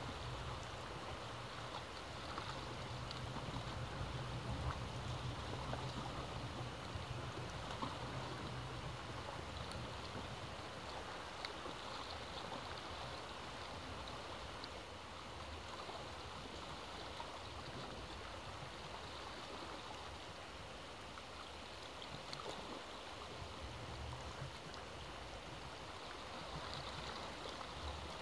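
Sea waves washing in and swirling, a steady rush of water. A low rumble swells over the first several seconds and again near the end as bigger surges come in.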